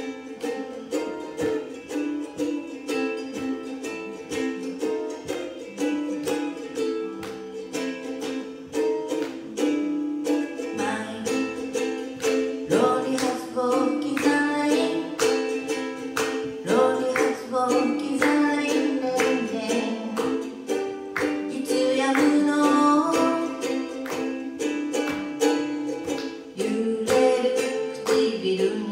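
Ukulele strummed in a steady rhythm, a live solo cover song, with a woman's voice singing over the strumming from about a third of the way in.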